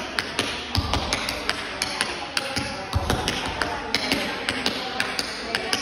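Tap shoes striking a wooden floor in a quick tap-dance sequence of sharp, irregular clicks, with heavier stamps about a second in and again near three seconds.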